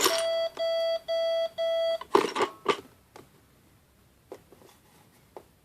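Toy cash register opening: a sharp click, then four quick electronic beeps of one steady pitch, followed by a short clatter of plastic coins and a few faint clicks.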